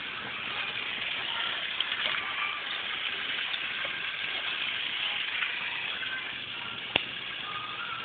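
Steady hiss of background noise, with one sharp click about seven seconds in.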